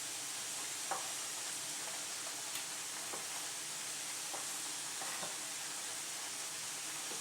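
Minced beef sticks sizzling steadily in hot oil in a frying pan, with a few faint light clicks now and then.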